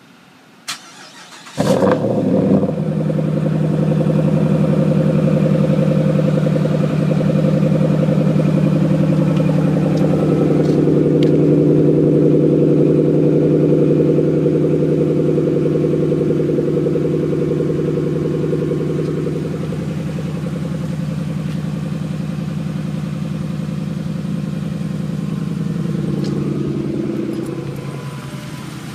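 2012 Ram 1500's 5.7-litre Hemi V8 cold-starting about a second and a half in, after sitting five days in about zero-degree weather, then idling loudly and steadily through a glasspack that replaces the factory muffler, with the stock resonators still fitted. The sound eases slightly about twenty seconds in.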